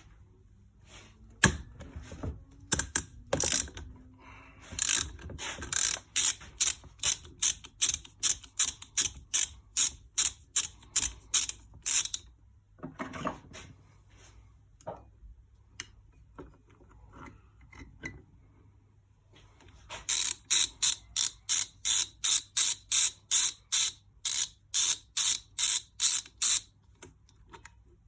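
Socket ratchet wrench clicking in even repeated strokes, about two a second, in two long runs with a pause of quieter scattered clicking between, as bolts on the Suzuki DR750's engine top end are undone. A sharp knock comes near the start.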